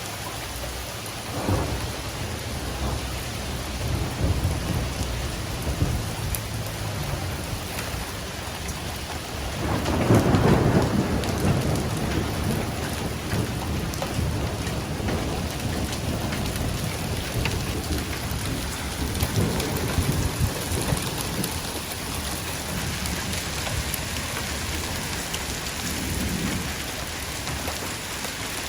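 Rain falling steadily in a storm, with low rumbles swelling and fading several times, the loudest about ten seconds in.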